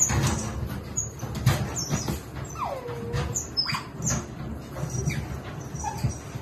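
Pet otters giving short high-pitched chirps and squeaks, one call sliding down in pitch near the middle, with sharp clicks and rattles from the wire pen as they climb it.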